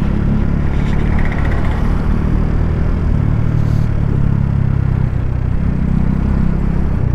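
Motorcycle engine running steadily under way, with road noise; the engine note drops a little about three seconds in.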